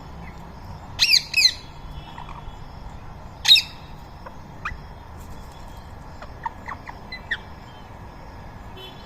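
Rose-ringed parrots squawking: two harsh calls about a second in and a louder one at about three and a half seconds, followed by several fainter, short calls.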